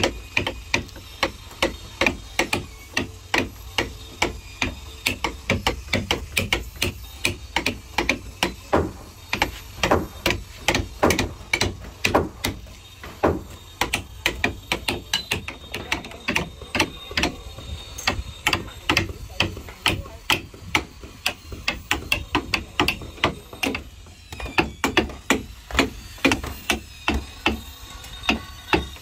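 Hammer blows on the wooden planking of a boat hull being repaired, about two to three strikes a second in an uneven rhythm.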